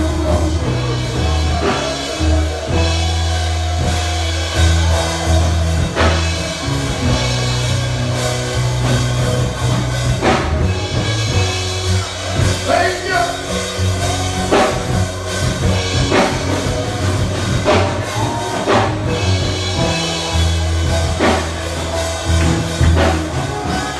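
Worship music with drums and a bass line that steps between sustained notes every second or two, and some singing over it.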